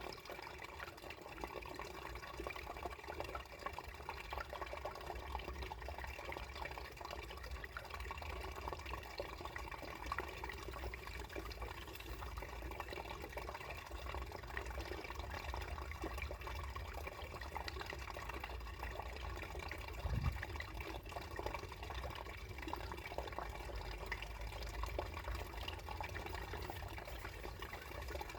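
Water trickling and gurgling under ice: a steady run of water flecked with small drips and bubbles, over a low rumble. A single soft low thump about two-thirds of the way through.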